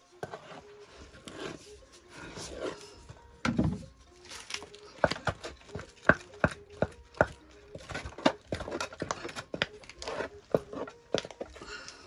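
Wooden stick mingling stiff millet bread dough in an aluminium pot: irregular knocks of the stick against the pot and slaps of the thick dough, several a second.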